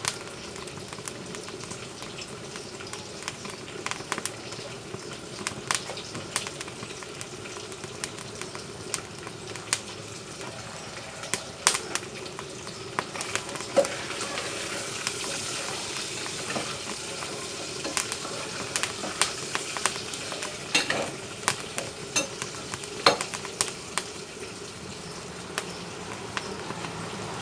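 Firewood burning in a wood-fired cookstove, crackling over a steady hiss with irregular sharp pops and a few louder snaps.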